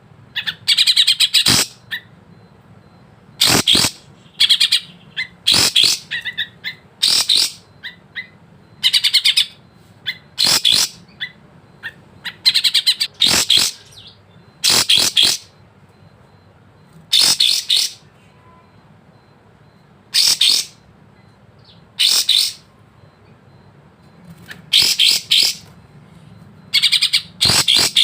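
Kapas tembak songbird singing short, rapid phrases of high notes, one every second or two, with 'isian' (learned fill notes) mixed in.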